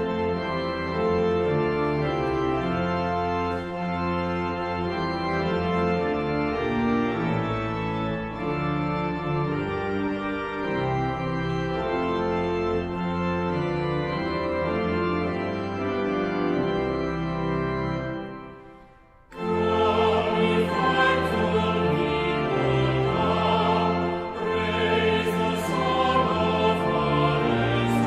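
Church organ playing held chords as a hymn introduction. After a brief pause about nineteen seconds in, voices start singing the hymn over the organ.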